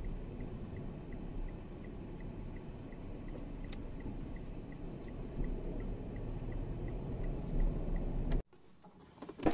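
Car interior noise while driving: a steady low rumble from the engine and road, with a faint, even ticking about four times a second. The sound cuts off abruptly near the end.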